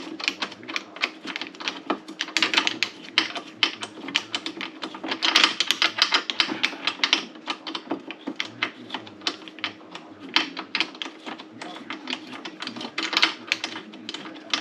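Rapid, irregular clicking and clacking of small hard parts being handled and worked, over a steady low hum.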